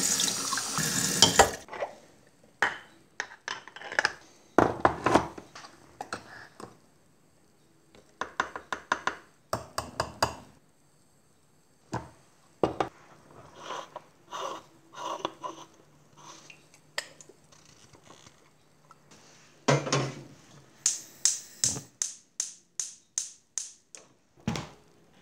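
Aluminium moka pot being handled by hand: metal knocks, clinks and scrapes as it is taken apart, filled and screwed together. Near the end comes a quick run of about ten sharp clicks, a gas hob's igniter, as the pot goes onto the burner.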